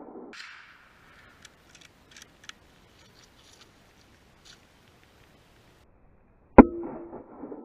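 A single gunshot near the end, its report echoing away after the crack. Before it there are only a few faint, scattered clicks.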